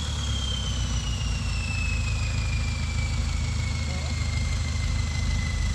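Off-road 4x4's engine running steadily as the vehicle crawls up a climb, with a thin high whine that slowly falls in pitch.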